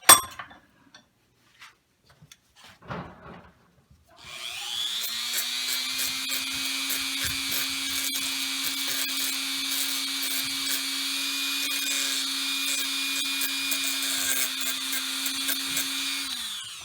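Small power tool running steadily for about twelve seconds, grinding to clean up the cut edges of replacement chronograph support pieces. It starts about four seconds in and winds down near the end, after a sharp click right at the start.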